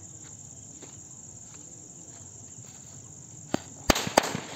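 Crickets chirring steadily. Near the end, a string of small bijli firecrackers starts going off with a few sharp bangs in quick succession.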